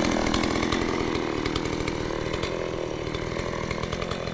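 Chainsaw running steadily.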